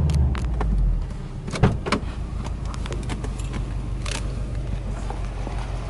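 Subaru Impreza WRX STi's flat-four (boxer) engine drops back from about 3,000 rpm within the first second, then idles steadily. A sharp knock about one and a half seconds in and several lighter clicks come from handling in the cabin.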